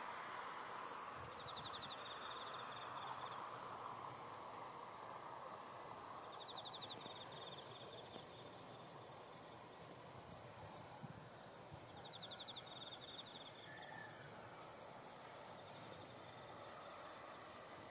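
Insects trilling: a pulsed, high-pitched trill about a second and a half long, repeating roughly every five seconds, over a steady thin high drone from other insects.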